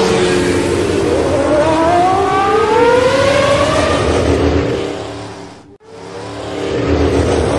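Car engine revving, its pitch rising and falling as it speeds up and slows. The sound drops away sharply about six seconds in and comes back.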